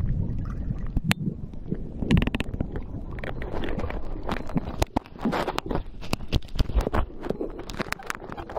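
Irregular knocks, taps and rubbing noises over a low rumble.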